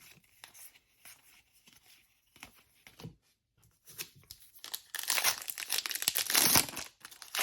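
A trading card pack wrapper being torn open and crinkled: faint handling rustles first, then loud tearing and crinkling from about five seconds in, lasting some two seconds.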